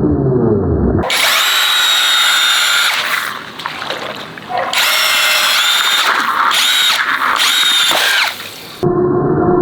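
High-pitched motor whine with wavering pitch, like a drill or small electric pump running. It starts about a second in, dips for about a second in the middle and again briefly near the end, then stops.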